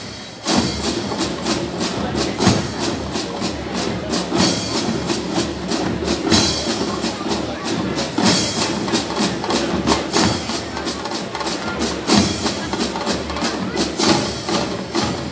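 Brazilian fanfarra (marching band) playing, with sharp percussion strikes keeping a steady beat. The music swells back in about half a second in after a brief dip.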